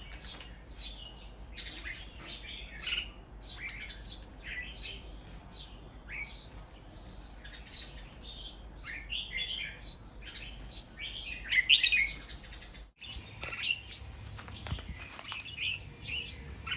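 Caged red-whiskered bulbul singing: a quick run of short whistled and chirping notes. About thirteen seconds in, the sound cuts to several caged bulbuls chirping.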